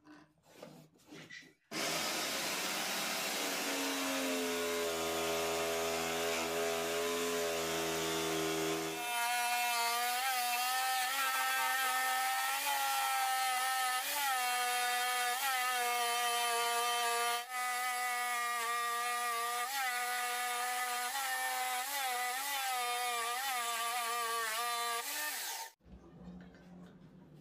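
Homemade narrow-blade power saw running and cutting a circle out of a pine block, its motor pitch dipping now and then as the blade takes the load. It starts about two seconds in and stops shortly before the end.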